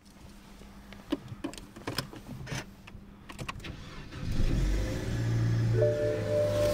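A few light clicks, then about four seconds in the BMW N45B16A 1.6-litre four-cylinder petrol engine starts from cold: it cranks briefly, catches and settles into a steady idle.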